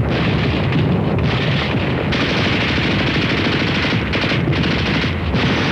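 Heavy gunfire: many rifle shots overlapping into a dense, unbroken rattle.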